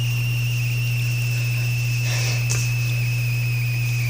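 Steady high-pitched whine over a constant low hum, the kind of electrical noise a recording device picks up, with a brief rustle about two seconds in.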